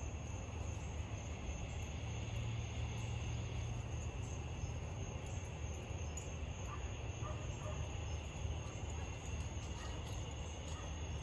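Steady high-pitched chirring of crickets over a low steady hum.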